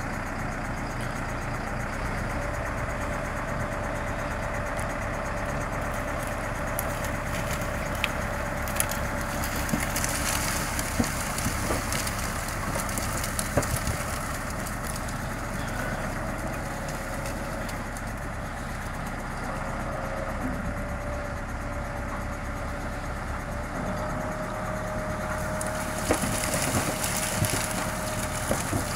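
MB Trac 900 Turbo tractor's turbo diesel engine running steadily with a steady whine, while a wooden tipping trailer of sugar beets is raised. Beets tumble out with scattered knocks and thuds, in bursts around the middle and again near the end.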